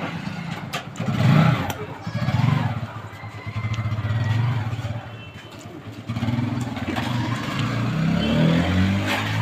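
TVS Apache RTR 160 single-cylinder motorcycle engine, freshly fitted with a new full clutch plate set, revved twice, then pulling away and riding off with the engine note rising near the end.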